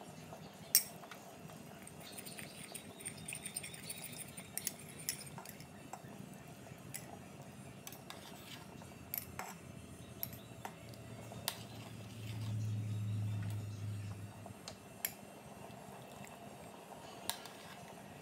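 A metal ladle clinking against a stainless steel pot and ceramic bowls as stew is ladled out, in scattered sharp clinks. A low hum comes in for a couple of seconds a little past the middle.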